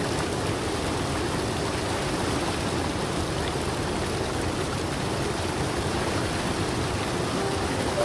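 Rushing water of a woodland stream cascading over rocks, a steady, even rush.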